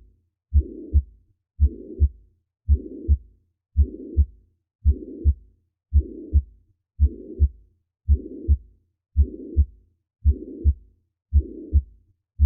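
Recorded heart sounds with a murmur: a steady beat of about 55 a minute, each pair of low lub-dub thumps joined by a rushing murmur that fills the short gap between the first and second sound, the pattern of a systolic murmur.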